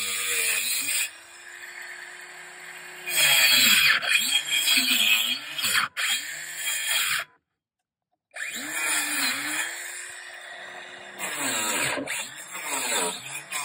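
Dremel cordless compact circular saw cutting OSB: the motor's whine sags in pitch each time the blade bites into the board and climbs back as it frees up, under a loud gritty rasp of the cut. For a couple of seconds after the start it spins freely at a steady pitch, and the sound cuts out completely for about a second just past the middle.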